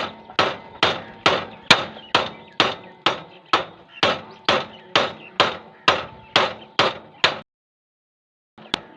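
Hammer blows on the bent-down metal strip of a motorcycle footrest, struck about twice a second and ringing faintly after each blow, to bend it back up so the footrest stands in place. The blows stop abruptly about seven seconds in.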